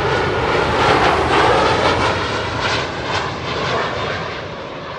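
Jet airliner passing low overhead on its landing approach: a loud rushing engine noise that swells to a peak about a second in and then slowly fades.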